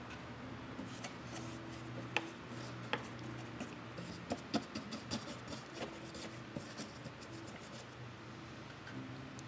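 Light rubbing and scattered small taps of a paintbrush working paint wash onto balsa-wood trim and handling a painted dollhouse, over a steady low hum.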